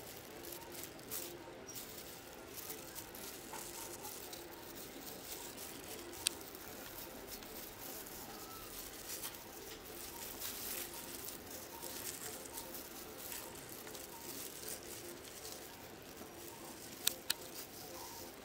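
Faint patter of sliced fruit being set into a glass bowl by plastic-gloved hands, with a sharp click about six seconds in and two clicks near the end.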